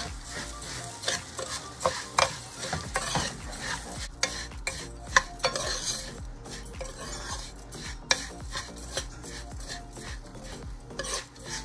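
A metal slotted spoon stirring and scraping rice around a nonstick pan, the grains sizzling as they fry in hot oil with onion and curry powder. Irregular knocks and scrapes of the spoon against the pan over a steady sizzle.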